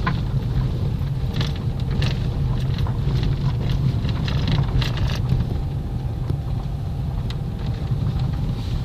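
Steady low rumble of a moving vehicle, with scattered light knocks and rattles.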